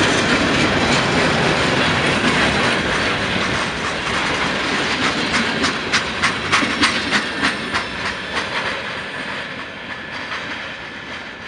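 Freight cars of a CN freight train rolling past on the rails: a steady rolling noise with the wheels clicking over rail joints, a quick run of clicks in the middle, then fading as the last cars move away.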